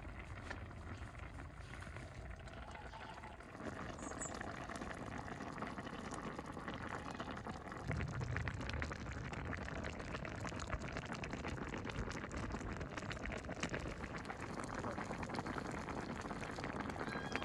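Beef stew bubbling at a boil in a large wide pan, the broth crackling and spluttering steadily, while a stream of beaten egg is poured into it.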